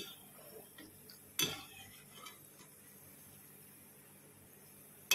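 A perforated metal skimmer clinking against a metal frying pan while stirring gulab jamun in hot oil: one sharper clack about a second and a half in, then a few lighter ticks. A faint steady sizzle of the frying oil runs underneath.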